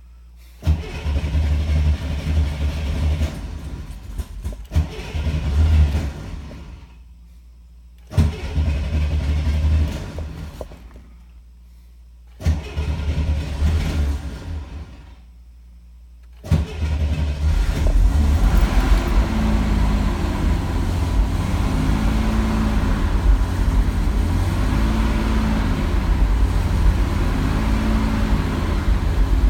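A hard-starting vehicle engine is cranked by its starter three times for several seconds each, with pauses between. On the fourth try, a little past halfway, it catches and keeps running, its revs rising and falling.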